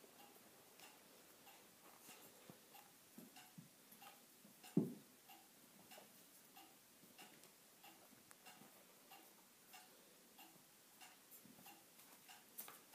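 Faint, steady ticking at about three ticks a second, with one dull thump about five seconds in.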